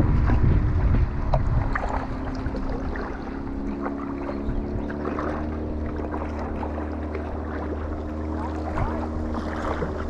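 Boat engine running at a steady pitch, with wind buffeting the microphone for the first couple of seconds and small splashes on the water.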